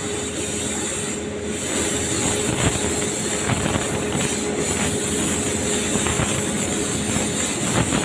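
Air compressor running: a steady mechanical noise with an even hum underneath.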